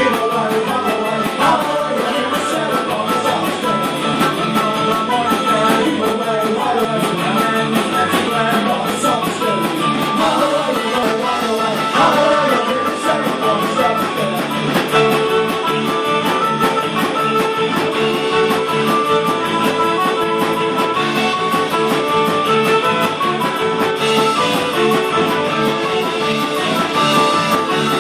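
Live Celtic rock band playing loud through a phone microphone: distorted electric guitar, bass and drums driving a rock arrangement of a sea shanty, in a mostly instrumental stretch between sung lines.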